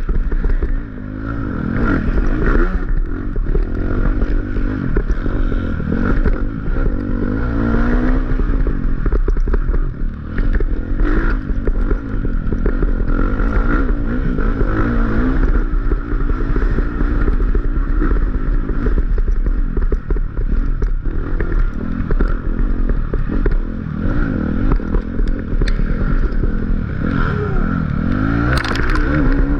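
Off-road dirt bike engine revving up and down as the rider works the throttle through a rough, twisty trail, with clatter and scraping from the bike bouncing over the ground and brushing past vegetation.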